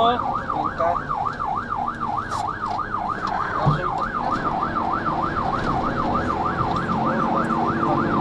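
Fire engine's electronic siren in a fast rising-and-falling yelp, heard from inside the truck's cab over engine and road noise. A single brief thump comes a little before the middle.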